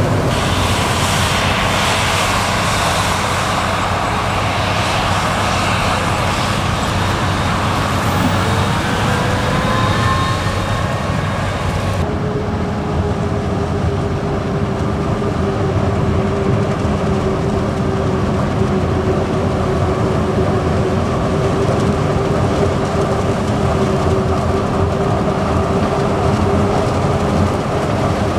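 Claas Jaguar 990 forage harvester chopping maize alongside a Fendt tractor pulling a silage trailer: a steady heavy machine rumble with a loud hiss of crop. About twelve seconds in the hiss stops abruptly, leaving a steadier engine drone with a held hum.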